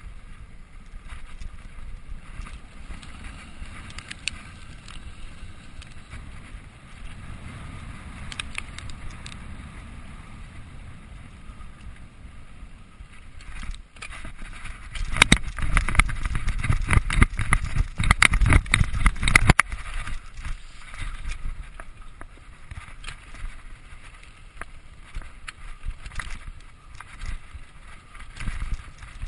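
Mountain bike rolling fast down a dirt forest trail: tyre noise on the ground, with the bike rattling and clicking over bumps. About fifteen seconds in, a loud stretch of about four seconds of hard, rapid rattling and knocks over rough ground.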